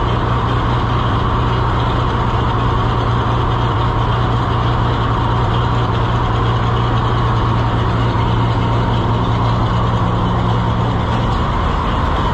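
Old farm tractor engine idling steadily, which the owner thinks is almost out of gas and running on fumes.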